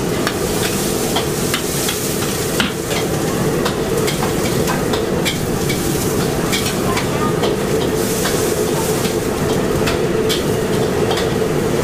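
Thin rice noodles stir-frying in a large steel wok: steady sizzling, with frequent short clicks and scrapes of a metal ladle against the pan.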